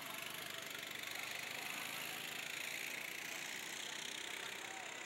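Go-kart engines running out on the track, a steady buzzing hum that swells a little as a kart passes and eases off near the end.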